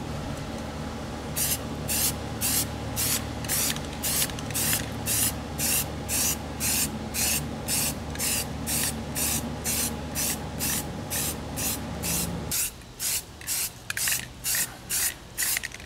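Aerosol can of Rust-Oleum camouflage spray paint being sprayed in short, evenly spaced bursts, about two hisses a second, to lay a coat of olive drab paint over a rubberized pack lid.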